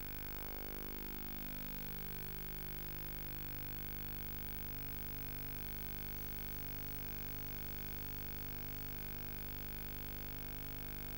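Steady electrical hum with hiss, from a Betamax tape transfer that carries no programme sound.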